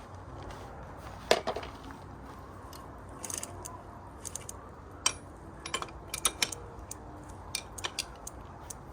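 Scattered metal clicks and knocks of a pedal wrench being fitted to a bicycle pedal and crank: one sharp knock about a second in is the loudest, with a quick cluster of clicks around six seconds in.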